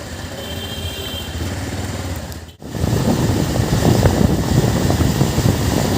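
Motorcycle engine running while riding, with a sudden brief dropout about two and a half seconds in, after which a louder, rougher noise of engine and wind takes over.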